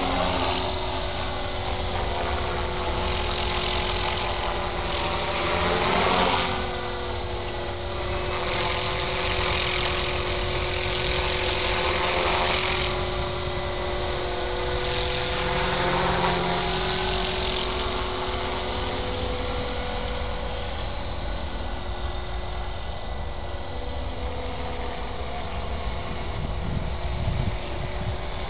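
EXI 450-class electric RC helicopter flying fast turns and passes: the steady high whine of its motor and rotors, with the pitch sweeping up and down several times as it passes by.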